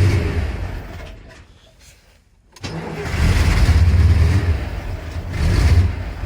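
A motor vehicle's engine running and revving with a heavy low rumble. It fades almost to silence about two seconds in, comes back abruptly, and swells twice more.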